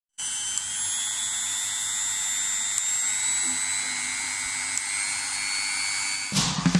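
Handheld electric mini grinder (rotary tool) spinning with no load: a steady high-pitched motor whine that climbs slightly in pitch as its speed dial is turned up. Music cuts in near the end.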